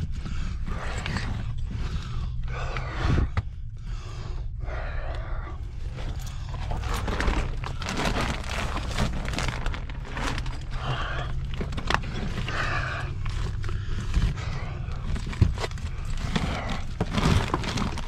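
A person crawling over rocks and rubble: irregular scraping, shuffling and clothes rustling, with scattered knocks, over a steady low hum.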